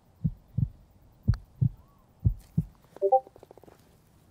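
Heartbeat sound effect, a slow lub-dub thumping about once a second, laid over a tense putt. About three seconds in, a short burst of quick clicks with a brief tone cuts in.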